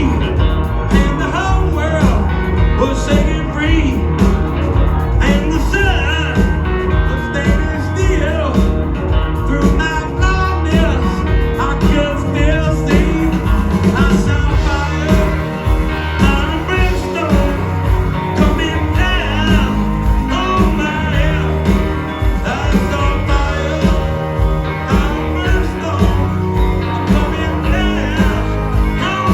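Live band playing a rock-and-roll song with a steady beat.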